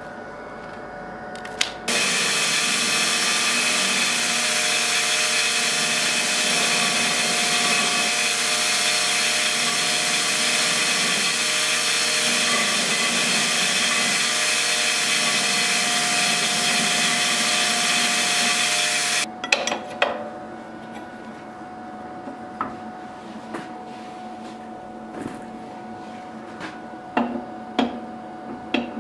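Belt grinder grinding a steel sword cross-guard: a steady, loud hiss of abrasive belt on metal that starts about two seconds in and cuts off abruptly after about seventeen seconds. Scattered light knocks and clicks follow.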